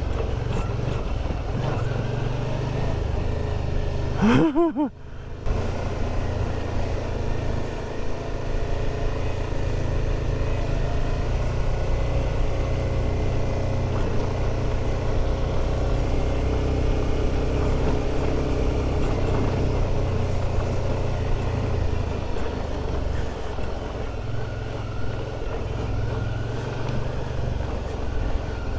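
Motorcycle engine running steadily while riding. About four seconds in there is a brief rising sound, then a short dip in level before the steady running resumes.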